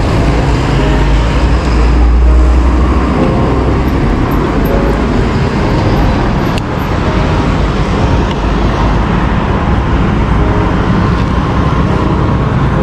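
Steady road and traffic noise, with wind buffeting the microphone as a heavy low rumble.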